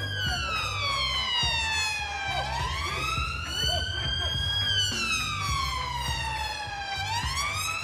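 Police siren on a slow wail, its pitch gliding down and up again, each sweep taking a little over two seconds.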